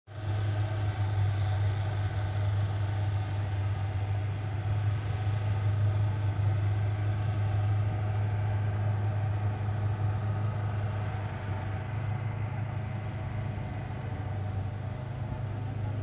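Rice combine harvester's diesel engine running steadily while it works the paddy, a continuous low drone.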